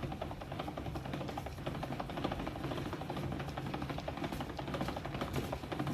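Tupperware Whip N Mix hand-cranked mixer turned steadily in its speed 2 gear, the one for thick mixtures, through thick cake batter: a fast, even rattle of many clicks a second.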